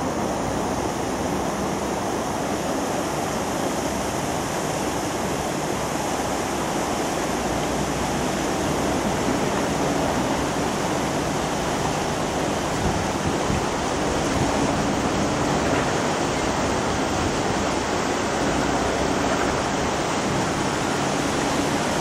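Fast-flowing river water rushing steadily where it breaks into white water.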